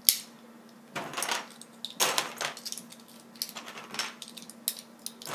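Plastic LEGO bricks clattering and clicking as hands rummage through a loose pile of them: a string of sharp clacks and rattles.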